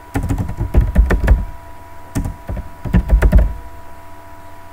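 Typing on a computer keyboard: two quick runs of keystrokes, one in the first second or so and another from about two to three and a half seconds in.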